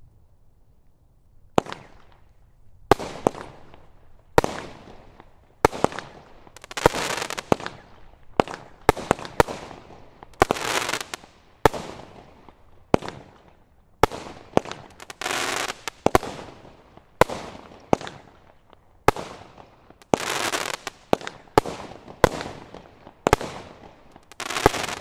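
Multi-shot aerial firework cake firing: a rapid string of sharp reports, about one or two a second, many followed by a longer crackle from the bursting stars.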